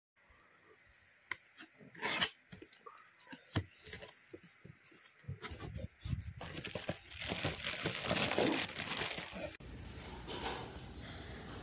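Plastic wrap around a boxed replacement air purifier filter crinkling and tearing as it is handled, after a few knocks from the cardboard box. The crinkling is loudest in the middle and settles to a steadier, quieter rustle near the end.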